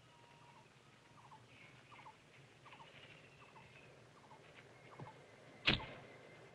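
Faint bird chirps repeating about every second, then one sharp loud crack near the end, like a shot being fired.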